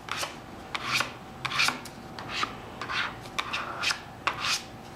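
A plastic card scraping across a freshly applied vinyl sticker in short repeated strokes, about two a second, squeegeeing the Windex out from underneath to leave it without bubbles.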